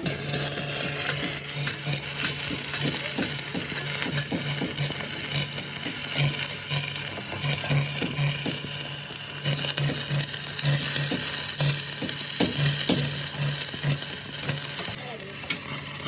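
Arc welding: a steady crackling sizzle from the arc, with a low hum that keeps coming and going.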